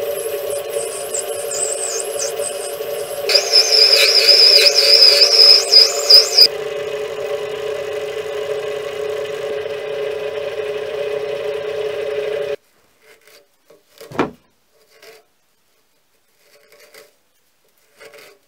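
Mini lathe running with a steady hum while a turning tool cuts a POM plastic bar. From about three to six seconds in, the cut adds a loud, high, wavering whine. The running sound cuts off abruptly about two-thirds of the way through, leaving only a few faint clicks and a single knock.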